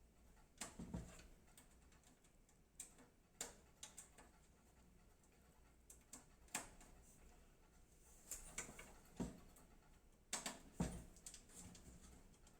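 Faint, irregular clicks and taps of a screwdriver and small metal screws against a PC case as the motherboard is screwed down onto its standoffs.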